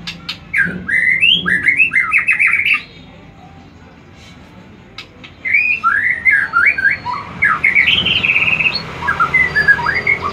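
White-rumped shama (murai batu) singing loudly in two bursts of quick, varied whistled notes that slide up and down in pitch. The first burst lasts about two seconds; after a short pause, the second runs longer.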